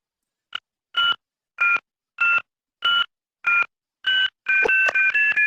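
Telephone keypad touch tones (dual-tone beeps) dialing a number: seven short beeps roughly every half second, then a quick unbroken run of beeps, about six a second, from about four and a half seconds in.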